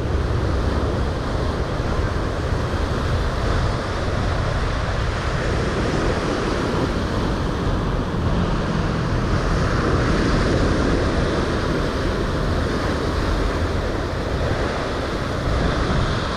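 Sea surf washing in against a rocky shore, a steady rushing noise, with wind buffeting the microphone.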